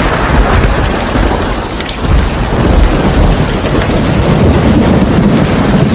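Thunderstorm: heavy rain with thunder rumbling deep and continuous, easing about two seconds in and swelling again soon after.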